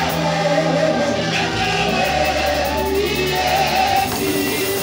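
Gospel worship music with singing over held bass notes.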